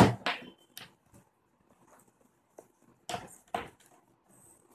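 A few sharp knocks and clicks of something being handled: three close together at the start, then a pair about three seconds in.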